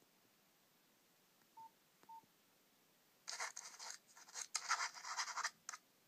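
Two short, identical keypad beeps, then the Nokia Asha 210's "Message 6" alert tone playing through the phone's small loudspeaker: a bright, hissy, rattling sound broken into quick pulses, lasting about two and a half seconds.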